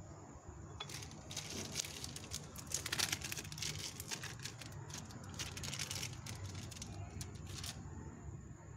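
Thin plastic film crinkling and rustling in quick, irregular crackles as cheese slices are peeled from it and torn by hand. It starts about a second in, is loudest around the middle and stops near the end.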